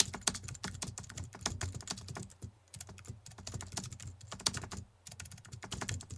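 Computer keyboard typing sound effect: a rapid, irregular run of key clicks that accompanies on-screen text being typed out, with short breaks about two and a half and five seconds in.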